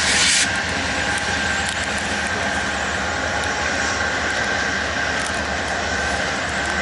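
Norfolk Southern freight train passing close by: its GE AC44C6M diesel-electric locomotives run with a steady loud noise and a steady high whine. A short hiss comes right at the start.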